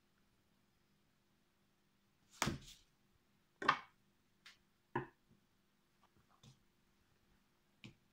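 A few short light knocks and taps, the first two the loudest, of a knife, a paper plate and chilli pods being set down on a tabletop, over quiet room tone with a faint hum.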